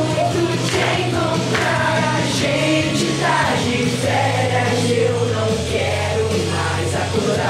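Upbeat pop song with a group of voices singing together over a steady beat and a held bass line.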